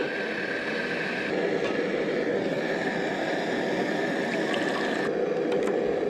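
Camp stove burner running steadily as hot water is poured from a saucepan into a plastic water bottle. The hiss thins about five seconds in, and a few light clicks follow as the bottle's lid is screwed on.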